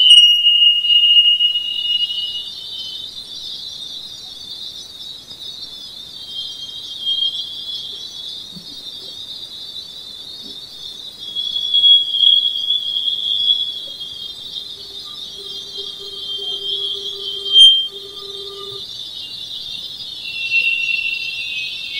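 Voyager 2 Plasma Wave Science recording of Jupiter's magnetosphere played as audio: a steady high-pitched hiss with a thin whistle at its lower edge that wanders slowly in pitch and swells about halfway through. A faint low hum and a fainter higher tone come in near the middle and stop abruptly; the uploader attributes such tones to the spacecraft's onboard interference.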